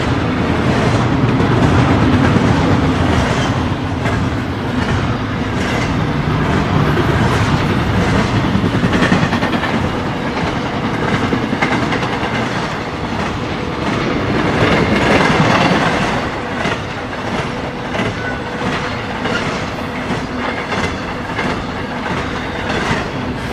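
Freight cars of a BNSF double-stack intermodal train rolling past, a steady rumble with repeated wheel clicks and clatter, swelling briefly in loudness about two-thirds of the way through.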